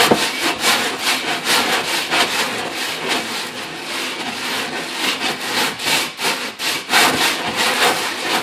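Aluminium ATV cylinder's top face scraped back and forth in figure-eight strokes on fine emery cloth laid on a flat countertop: a continuous gritty scraping in quick repeated strokes. The cylinder deck is being lapped flat to take out warp before a new head gasket.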